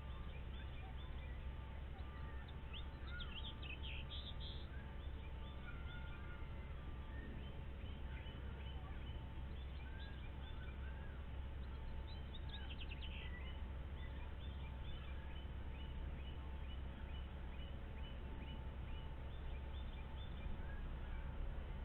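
Wild birds chirping and calling on and off, with a couple of quick runs of short high notes, over a steady low rumble and a faint electrical hum.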